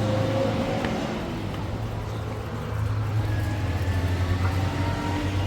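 A motor vehicle's engine running with a steady low hum, swelling a little in the second half.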